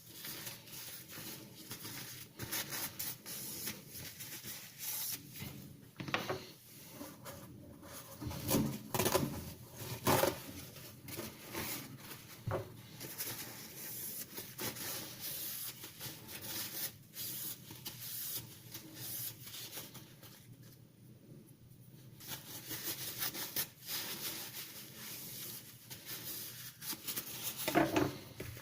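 Irregular light rubbing and scraping with scattered clicks and knocks, from a serrated knife and sharpening tools being worked and handled by hand.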